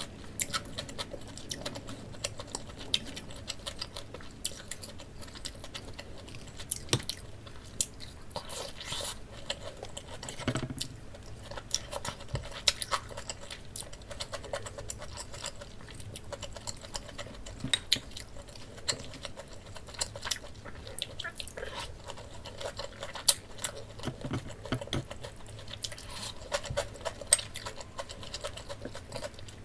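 Close-miked eating of a fried breaded pork cutlet (donkatsu): steady chewing and crunching, with many small sharp clicks.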